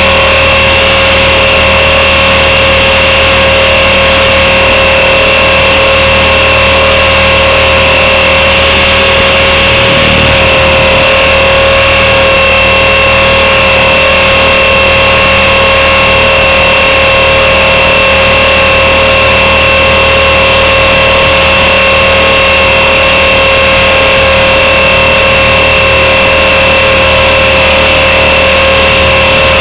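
Blade 400 electric RC helicopter in flight, heard close up from a camera mounted on it: a loud, steady high whine from the motor and gears over rotor noise, its pitch holding level throughout.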